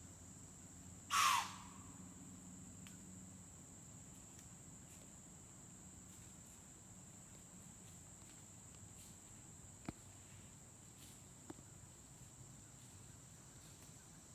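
One loud, short, harsh animal call about a second in, over a steady high trill of insects. Two faint clicks follow later.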